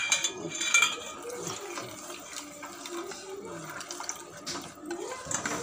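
Cornflour slurry pouring and splashing into simmering gravy in a steel pot while a steel ladle stirs it, with a few light clinks of the ladle against the pot.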